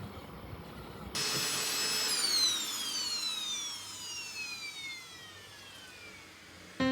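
Vacuum cleaner motor whining at speed, switched off about two seconds in and spinning down with a steadily falling whine that fades away. Piano music comes in right at the end.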